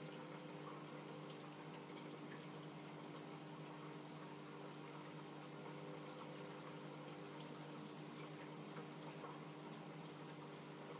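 Reef aquarium's water circulation: a steady wash of running, trickling water with a constant low hum from the tank's pumps.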